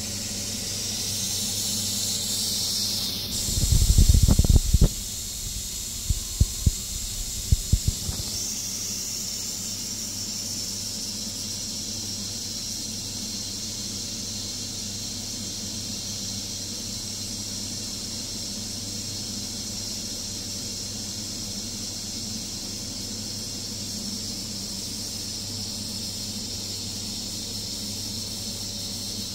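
Ninja Foodi MAX multi-cooker hissing steadily as steam escapes while it builds pressure. A few low thumps come between about four and eight seconds in.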